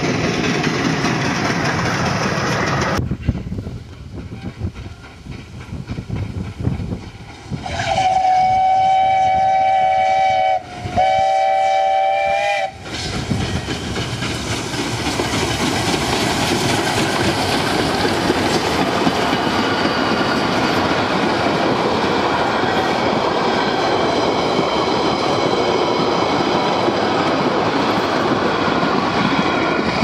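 A steam locomotive whistle blows two blasts, a chord of several close tones, the first about three seconds long and the second shorter. Then a double-headed steam tram rolls past close by, with the locomotives and the wooden carriages making a loud, steady noise.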